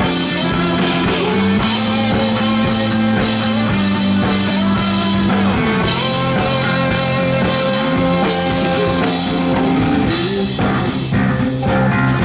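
Live rock band playing loudly through a PA, drum kit with cymbals, guitar and bass holding long notes that change every second or two; near the end the music thins briefly to a few drum hits before the full band comes back.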